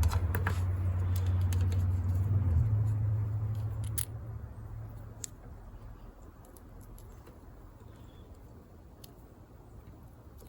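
Small clicks and snips of hand tools working on wire ends and terminals while the key switch is wired. A loud, steady low rumble fills the first few seconds and dies down about four seconds in.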